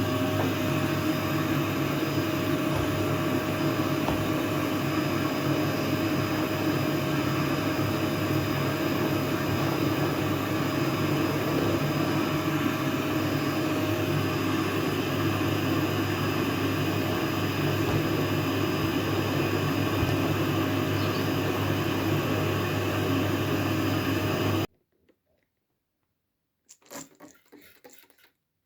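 A household appliance's motor running steadily with a low hum and a faint whine, cutting off abruptly about 25 seconds in. Light rubbing and scratching follow near the end.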